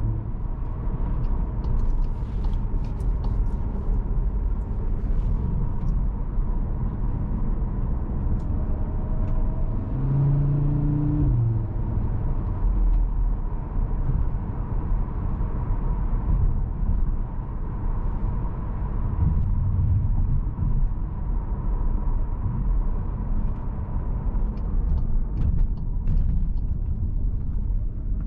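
Cupra Formentor VZ5's 2.5 TFSI five-cylinder engine running under way, with steady low road and tyre rumble. Its engine note stands out briefly about ten seconds in.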